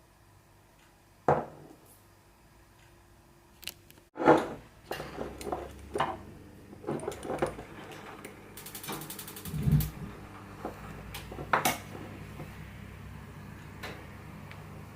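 Kitchen handling sounds: glass jars and utensils being picked up and set down on a counter, a string of sharp knocks and clinks, with a quick run of clicks about halfway through and a dull thud just after.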